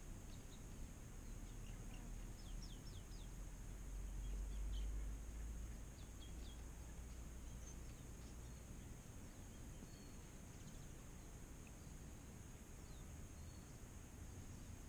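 Faint outdoor ambience with small birds chirping in short scattered calls, a steady high-pitched hum in the background, and a low rumble that swells briefly about four seconds in.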